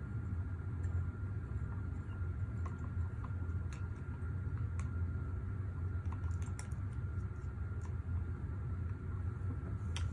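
Scattered small clicks and taps of rifle and chassis parts being handled during assembly, over a steady low hum with a faint high-pitched tone.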